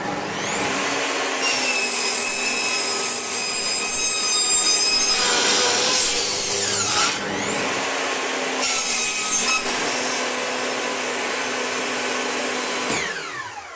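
Table saw running and cutting wood: the motor spins up to a steady high whine, the blade cuts through the wood twice with a harsh rasping noise, the pitch drops sharply and comes back up about halfway through, and near the end the saw is switched off and winds down.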